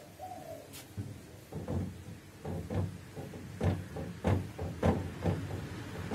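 Marker writing on a whiteboard hung by a cord, heard as a series of irregular short taps and knocks as each stroke presses on the board.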